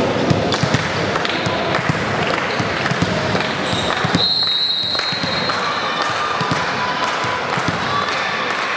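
Volleyball hall between rallies: spectators and players chattering, with scattered thuds of a ball bouncing on the floor, and a referee's whistle blown once for about a second, about four seconds in, signalling the serve.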